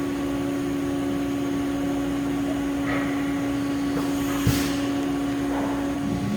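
Haas UMC-750SS 5-axis CNC machining center running with its spindle turning at about 1125 RPM: a steady hum with machine noise, a single click about four and a half seconds in, and the hum changing pitch and dropping away near the end.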